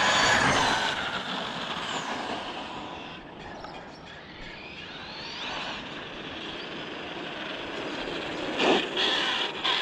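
Tekno ET48 2.0 RC truggy at speed on asphalt, its Castle 1520 1650kv brushless motor and drivetrain running with a high whine on 6S with a 17-tooth pinion. The whine is loudest and falls in pitch as the truck passes close at the start, dies back, climbs again midway, and near the end dips sharply and comes back up in a short loud swoop.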